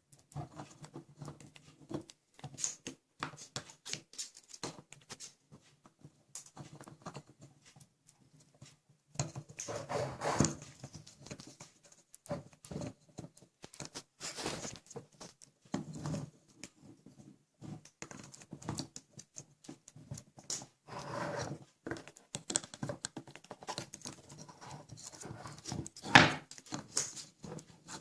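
African grey parrot clattering about with a toy railway: irregular clicks, taps and rattles, broken by a few short, harsh animal sounds, the loudest near the end.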